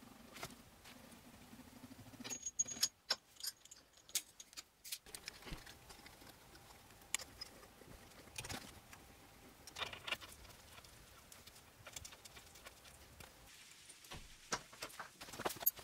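Workshop handling noise: scattered light clicks and metallic clinks, a cluster from about two to five seconds in, a few single ones in the middle, and another cluster near the end.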